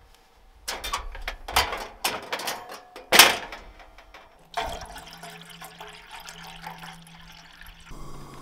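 Portable gas camp stove being handled: a run of sharp clicks and clanks, the loudest about three seconds in, then from about four and a half seconds a steady rushing noise with a low hum.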